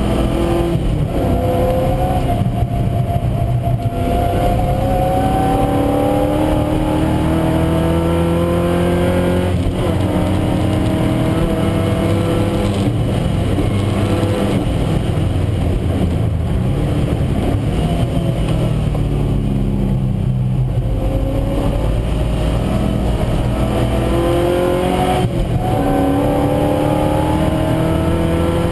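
Triumph TR7's Rover V8 engine heard loud from inside the stripped race-car cabin, revving hard through the gears on track. The pitch climbs and breaks at upshifts about a second in, around ten and thirteen seconds, and again near the end, with a spell of falling revs in the middle as the car slows for a corner.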